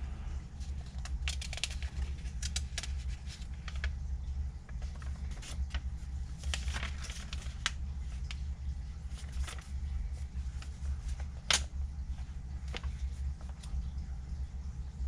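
Irregular light clicks and ticks of a four-stroke piston and its piston rings being handled during ring installation, with a sharper click a little past the middle, over a steady low hum.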